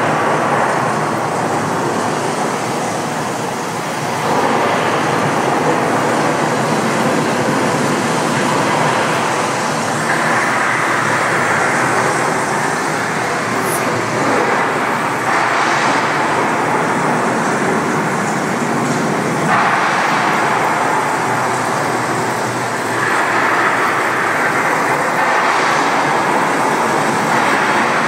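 Artificial indoor rainstorm: sprayed water pouring down onto a shallow pool and wet pavement in a steady, loud hiss that swells and eases a few times.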